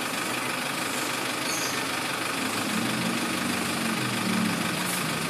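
Hyundai Starex CRDi common-rail turbo-diesel engine idling steadily, kept running by the turbo timer's countdown after the key is off.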